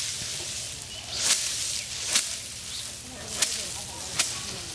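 Dried mustard plants beaten by hand against a wooden plank to thresh out the seed: four sharp strikes roughly a second apart, each with a rustling swish of the stalks.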